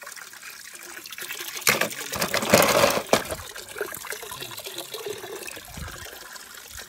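Water sloshing and splashing as a hand rummages through a shallow pool of water and plastic balls to fish out a toy car, loudest about two to three seconds in.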